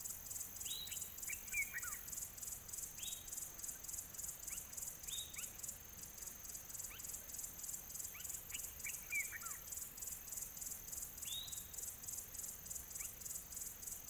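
Faint outdoor ambience: a steady high-pitched insect chorus pulsing about four times a second, with short bird calls every few seconds, several of them dropping sharply in pitch.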